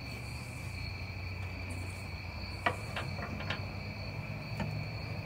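Quiet background: a steady high-pitched trill over a low hum, with a few light clicks around the middle.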